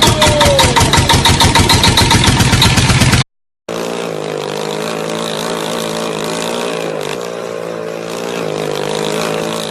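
Ford Mustang engine running with a loud, even pulsing of about nine beats a second. After a sudden cut, a car engine idles steadily.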